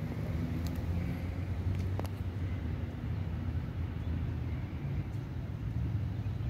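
A steady low engine hum, such as a nearby motor vehicle running, with a couple of faint clicks about half a second and two seconds in.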